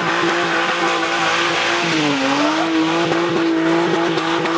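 Drift car's engine held at high revs, dipping briefly about two seconds in and climbing back, with tyre squeal from the car sliding around the track.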